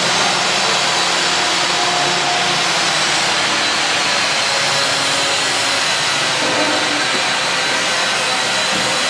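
A loud, steady rushing hiss with a thin high whine running through it, unchanging throughout.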